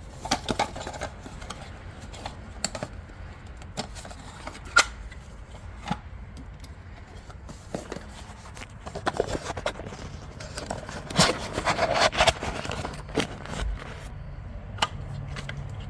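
Hands fitting a replacement auto-ignition control board into an RV water heater: scattered clicks, taps and short scrapes of plastic and metal parts, busiest from about nine to thirteen seconds in, over a low steady hum.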